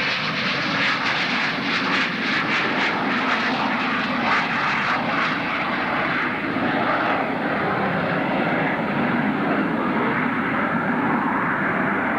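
Jet engines of an F-117A Nighthawk stealth fighter running loud, a steady rushing noise with a fluttering in the upper hiss for the first few seconds that softens after about six seconds.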